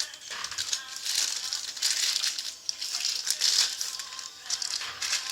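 Plastic packaging crinkling and rustling as model parts are handled, in irregular bursts.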